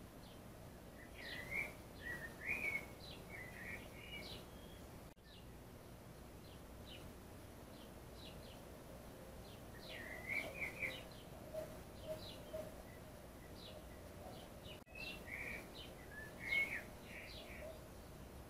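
Small birds chirping outdoors in three spells of quick, short calls, about a second in, around ten seconds in and again around fifteen to seventeen seconds in, over a faint steady background hiss.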